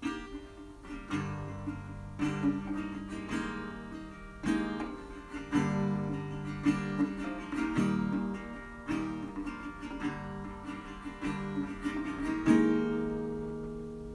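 Instrumental acoustic guitar: picked and strummed chords over a moving bass line, ending on a loud chord about twelve seconds in that rings out and fades.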